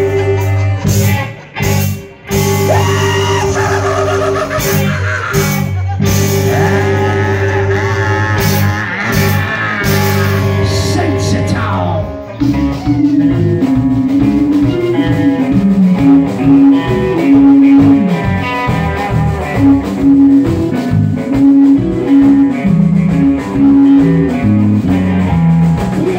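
Live rock band playing an instrumental passage on electric guitars, bass and drums. For about the first twelve seconds it holds sustained low notes under sliding guitar lines, then breaks into a choppy, rhythmic riff.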